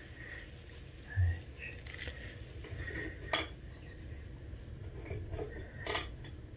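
A few faint, sharp clinks, the clearest about three and six seconds in, with brief high chirps and a low steady rumble underneath.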